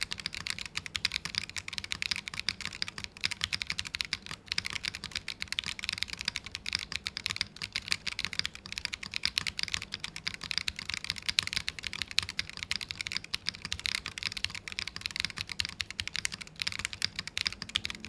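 Continuous fast typing on a Qwertykeys QK80 custom mechanical keyboard, FR4 plate with no foam, Akko CS Wine White tactile switches and PBT cherry-profile keycaps: a dense, even stream of keystrokes. In this foamless build some resonant, metallic ping comes from the case.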